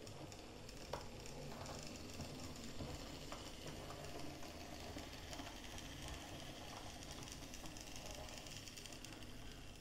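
OO gauge model locomotive running on the track: a faint, steady whir from its small motor and wheels, with scattered light clicks and one sharper click about a second in.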